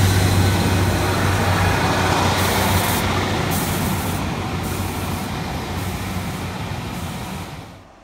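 Diesel multiple unit's underfloor diesel engine running with a steady low hum under broad mechanical noise, slowly growing quieter. The sound drops away sharply just before the end.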